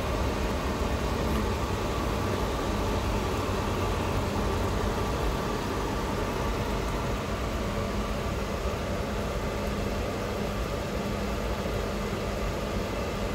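Automatic ramen-cooking machine running as it heats a bowl of noodles on its induction plate: a steady, even hum with a faint held tone.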